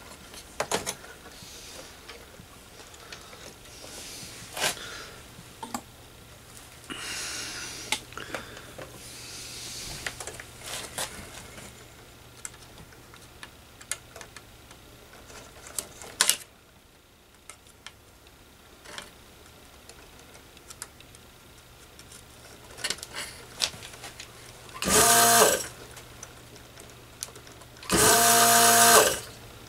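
Vacuum desoldering gun's pump running in two short bursts near the end, about a second and then a second and a half, sucking solder off capacitor leads on a circuit board. Before that, scattered small clicks and taps of the tool on the board.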